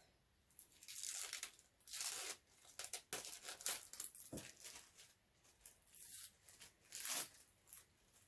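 Plastic wrapping of a Fruit Roll-Up being torn and peeled open, crinkling and ripping in irregular bursts.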